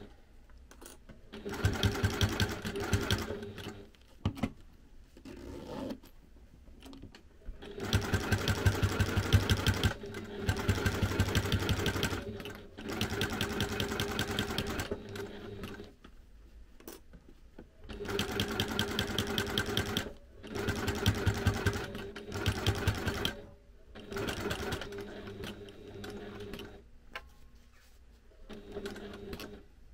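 Domestic sewing machine top-stitching through clear vinyl and fabric binding, running in several stretches of a few seconds each, with short pauses between them, as rapid even needle strokes.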